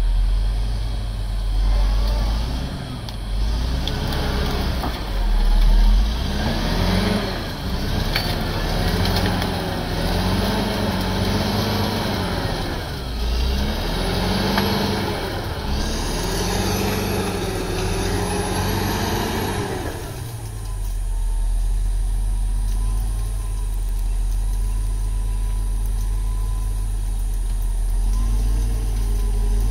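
Crawler bulldozer's diesel engine working under load, its pitch rising and falling again and again through the first two-thirds, then settling into a steady low drone.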